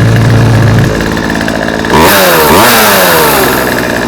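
Old Poulan two-stroke chainsaw idling, then revved in a few quick throttle blips from about halfway through, the pitch rising and falling back each time. It runs smoothly after a makeshift fuel line and primer bulb repair.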